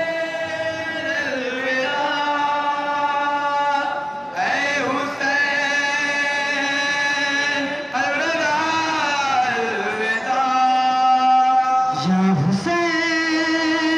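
Men chanting a noha, a Shia mourning lament, in long held notes, the phrases breaking about every four seconds.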